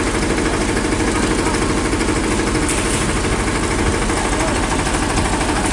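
An engine idling steadily, with an even low throb.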